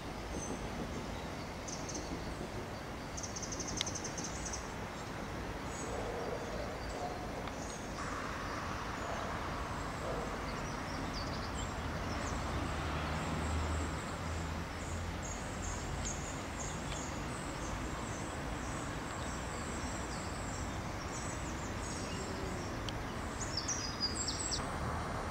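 Outdoor street ambience: a steady low rumble of traffic, with small birds chirping in short high bursts throughout, busiest in the second half.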